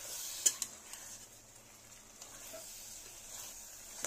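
Steel ladle stirring vegetables through hot oil and masala in a metal pot: faint sizzling, with a couple of light ladle scrapes about half a second in.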